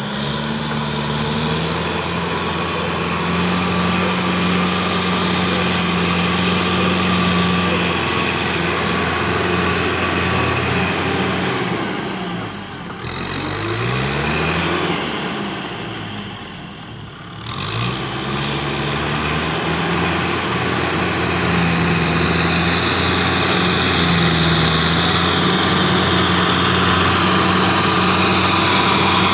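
Kubota farm tractor's diesel engine running steadily under load while working a flooded rice paddy, its pitch gliding up and down a few times midway and the sound growing louder near the end as the tractor comes close.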